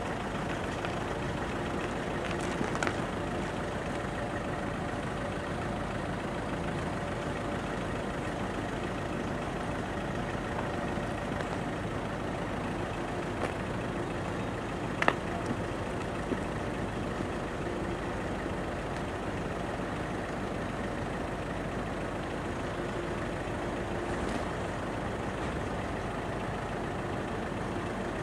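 Truck engine running steadily at an even pitch, under a raised truck-mounted aerial work platform. A sharp click sounds about fifteen seconds in.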